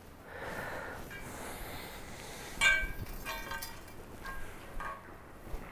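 Packing material rustling as parts are unwrapped. Near the middle, a metal part clinks and rings briefly, with a few lighter clinks after it.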